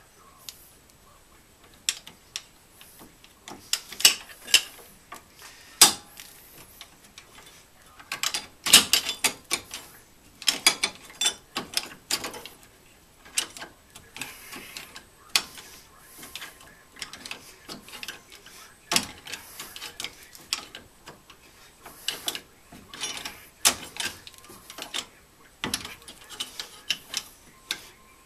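Hand ratchet wrench clicking in short, irregular runs, with scattered metallic clinks, as it is worked on the bolts of a Datsun Roadster's front brake backing plate.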